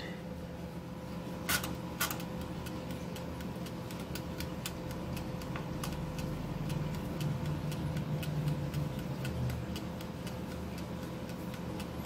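Mechanical wind-up timer of a Mainstays 4-slice toaster oven ticking evenly, several ticks a second, just after being set. Two louder clicks come about one and a half and two seconds in, over a faint steady hum.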